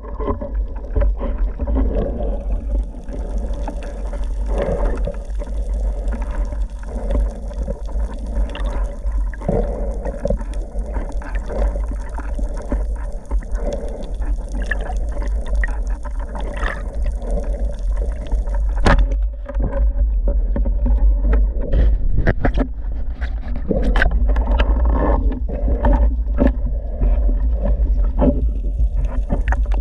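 Muffled underwater water noise, with a steady low rumble and scattered sharp clicks and knocks, heard through an action camera's waterproof housing. The clicks come more often in the second half.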